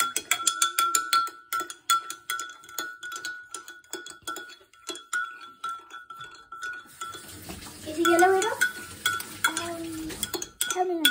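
Metal wire whisk beating egg and milk in a glass measuring jug: rapid clinking strokes against the glass, with the jug ringing in a steady tone. Near the end the strokes thin out and a voice makes a few sliding sounds over a light hiss.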